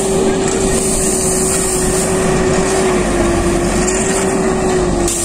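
Backhoe loader's diesel engine running steadily, a constant hum that sags slightly in pitch a couple of times.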